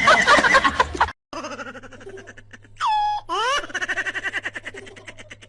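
An animal's high crying calls: one long call falling in pitch, then quick rising calls and a run of fast pulsing cries, over a steady low hum. Before them, music cuts off about a second in.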